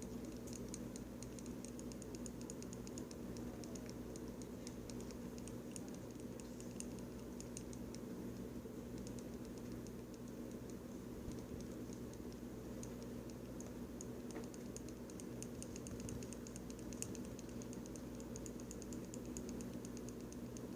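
Gel pen colouring a foam squishy in quick, short strokes: a faint, fast run of light ticks and scratches.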